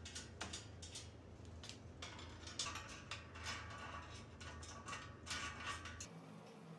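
Small metal parts lightly clicking and clinking as gloved hands handle and turn a nut and eye nut on a stainless threaded rod, with the rustle of the gloves. The clicks are irregular and stop abruptly near the end.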